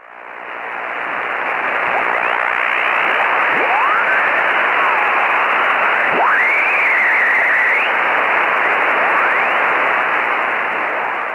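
Shortwave radio receiver static: a dense band-limited hiss with thin whistles gliding up and down in pitch through it, swelling in over the first couple of seconds.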